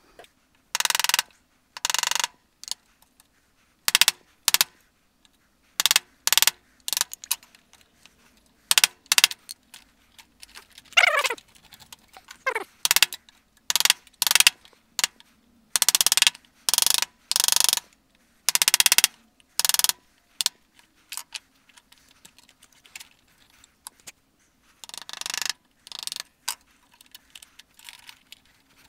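Hand tools cutting into soft wood for a dovetail joint: a long series of short scraping strokes at an irregular pace, with two falling squeaks a little before halfway.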